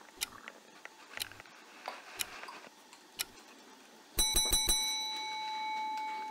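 Faint small clicks and scrapes as a new vanilla bottle's seal is picked at. About four seconds in, four quick light strikes are followed by a long, slowly fading bell-like ring, the loudest sound here.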